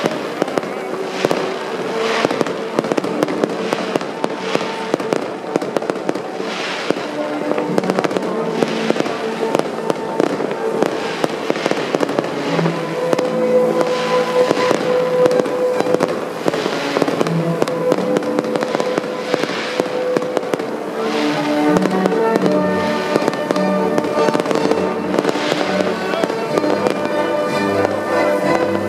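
Fireworks crackling and popping in a dense, irregular stream of sharp bangs, with music playing throughout.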